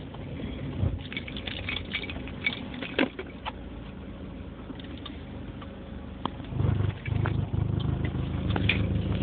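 2005 Dodge Neon running in gear with a low droning noise under scattered light clicks and rattles; the drone grows clearly louder about six and a half seconds in and holds. The owner calls it terrible: it is present in drive and stops when the car is put in park.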